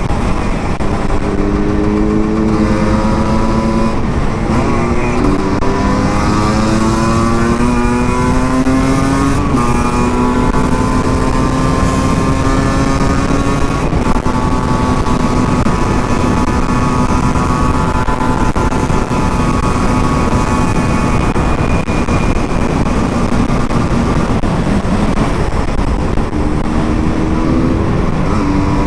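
Husqvarna SM 125 single-cylinder two-stroke engine riding under way. Its pitch climbs in steps through the gears over the first ten seconds, holds fairly steady at cruising speed, then climbs again near the end, over a steady rush of wind noise.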